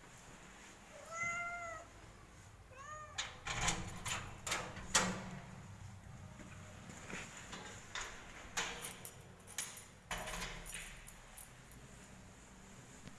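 A street cat gives one drawn-out meow, then a quick chirping trill, asking for food. After it comes a run of clicks and knocks, the loudest about five seconds in.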